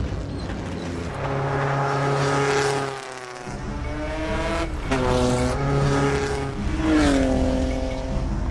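Early-1900s race car engines revving hard and racing past. Twice in the second half the engine pitch falls as a car goes by.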